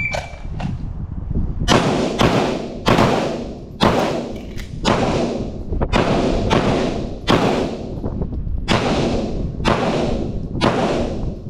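9mm pistol shots: a shot-timer beep at the start, then about a dozen shots from two shooters firing a timed string, irregularly spaced, with a longer pause midway for a magazine reload.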